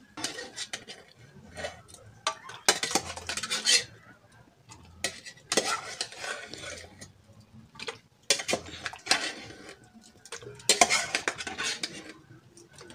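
Metal spoon scraping and clinking against a small metal pot as boiled tomatoes are scooped out, in about five bursts two to three seconds apart.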